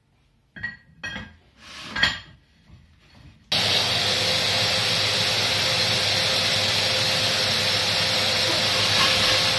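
Metal clinks and knocks as the diamond core drill's extension and bit are handled and fitted. About three and a half seconds in, a steady machine noise starts abruptly and runs on at an even level.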